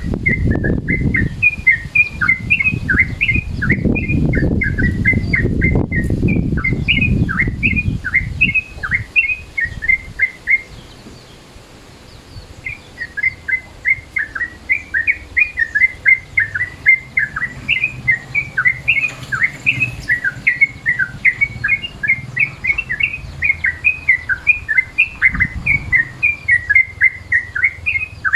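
Yellow-vented bulbul (trucukan) singing in a fast chattering run of short, bright notes that stops for about two seconds about eleven seconds in and then carries on. A low rumbling noise lies under the song for the first eight seconds or so.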